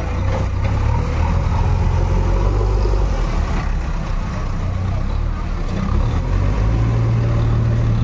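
Diesel engines of a JCB 3DX backhoe loader and a tractor with a front-loader attachment running steadily at close range, a deep engine rumble throughout.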